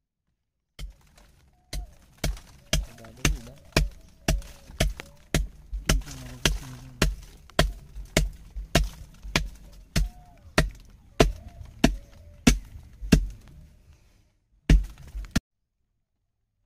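A metal spike chipping at packed ice in a boat's fish hold, breaking it up to free the catch. Sharp strikes come about two a second, a couple of dozen in all, then a quick flurry of blows near the end.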